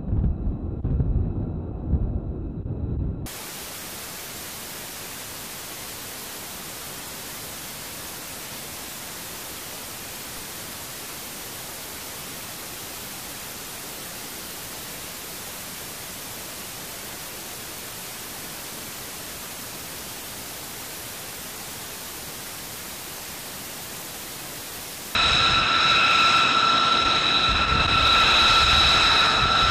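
Mostly a steady, even hiss of white noise, static. It begins out of a low rumble that stops abruptly about three seconds in, and near the end it gives way suddenly to a louder jet engine whine with steady high tones.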